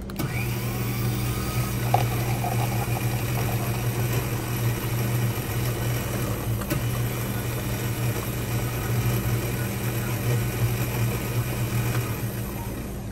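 A coffee-shop machine motor running with a steady low hum and whir, then stopping shortly before the end.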